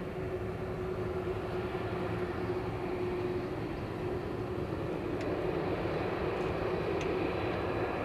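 Boeing 747-400's four turbofan engines running steadily as the jet rolls past on the ground: a low rumble with a steady tone over it.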